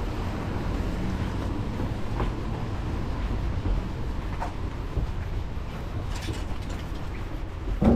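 Outdoor street ambience: a steady low rumble with a few light clicks, and one sharp knock near the end.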